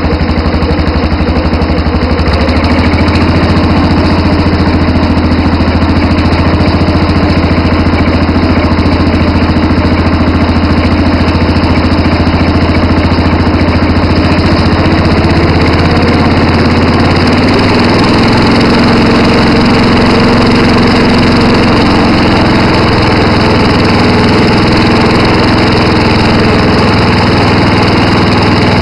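Massey Ferguson 10–12 horsepower garden tractor's small engine running steadily as the tractor drives along a paved road. The engine's low note shifts a little past halfway through.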